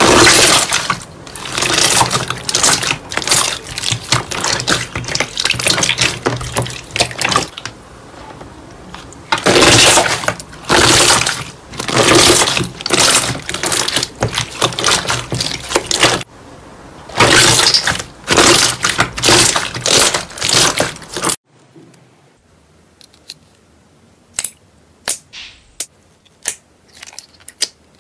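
Hands squeezing and pressing a clear, bubble-filled green slime, making loud wet squelching with dense runs of small pops, in bursts with two short lulls. About 21 seconds in it cuts off suddenly to a much quieter soft slime being poked in a plastic tub, with a few sharp isolated clicks near the end.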